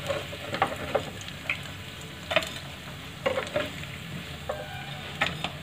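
Hot oil sizzling in a kadai as fried Maggi manchurian balls are scooped out with a steel spoon, the spoon scraping and clicking against the pan several times.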